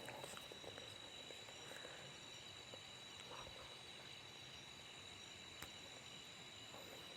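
Faint night insects with a steady high-pitched tone, over near silence.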